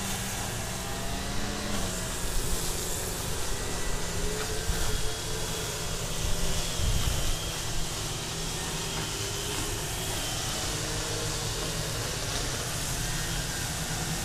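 Several petrol brush cutters mowing grass, a continuous engine drone with a few overlapping pitches that swells slightly now and then.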